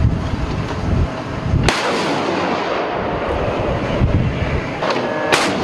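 Warship's deck gun firing twice, sharp reports about three and a half seconds apart, each followed by a short ringing tail, over a low rumble of wind and the ship.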